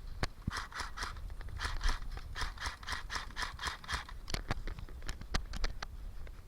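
Quick rhythmic crunching footsteps, about six strides a second, of a player running, with scattered sharp clicks among them.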